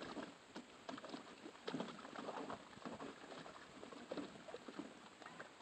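German Shepherd puppy splashing in a shallow plastic kiddie pool, pawing and dipping its head at the water in quick, irregular splashes.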